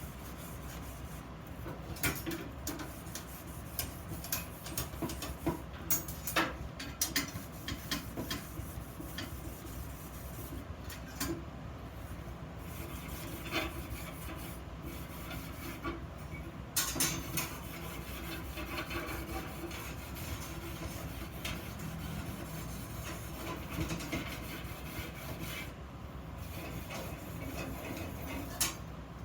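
Hand rubbing and scraping on iron workpieces, with irregular clicks and light knocks scattered through it.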